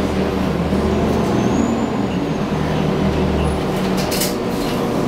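Interior of a 2010 Nova Bus LFS city bus: steady drone of the bus running, with a strong low hum that drops away about three and a half seconds in, followed by a couple of brief rattles.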